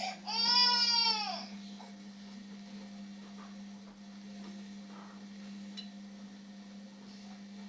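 A young child crying: one long wail that falls in pitch and breaks off about a second and a half in. It is followed by a steady low hum.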